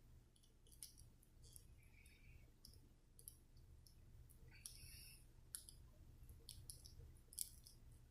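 Faint, irregular metallic clicks of a lock pick and tension wrench working the pins of a Brinks 40 mm padlock during single pin picking, over a low steady hum.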